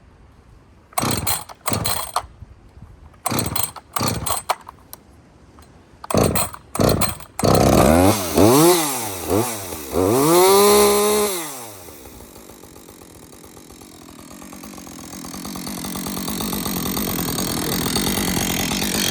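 Rebuilt two-stroke chainsaw being pull-started: several short bursts of cord pulls, then the engine catches about seven seconds in, revs up and down a few times and settles into a steady idle. It runs with a little knock that the owner believes is a bearing going, a bearing that was not new when fitted.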